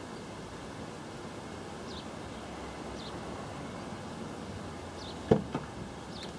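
Two sharp knocks on a car window about five seconds in, the first much the louder, over a steady outdoor hiss with faint, brief bird chirps.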